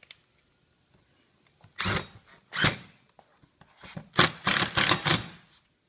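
Screws being driven through a mounting bracket into the face of a wooden workbench with a power driver, in short bursts: two about two seconds in, then a quick run of four or five near the end.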